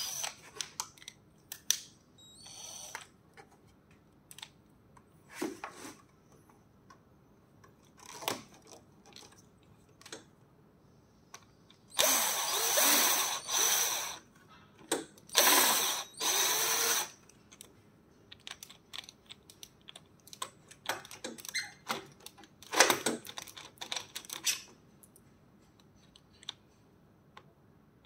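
Cordless drill driving a bolt into a treadmill's handrail joint, running in two bursts of a couple of seconds each about halfway through. Scattered clicks and knocks of metal parts being handled come before and after, with one sharper knock near the end.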